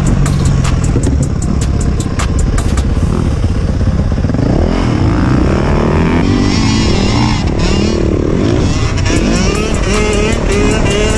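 Yamaha 450 four-stroke single-cylinder dirt bike engine under hard riding, revving up and dropping off again and again as the rider works the throttle and gears around the track.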